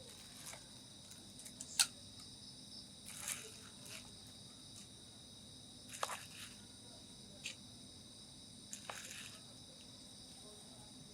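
Faint, steady high-pitched insect chirring, with a few scattered short clicks and soft wet squishes.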